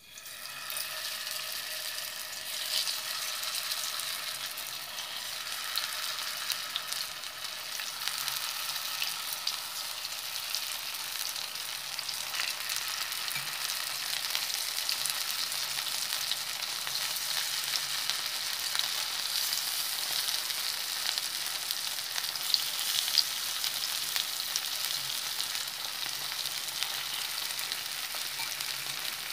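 Paneer pieces coated in cornflour and spices sizzling steadily as they fry in a hot pan, with occasional sharp crackles.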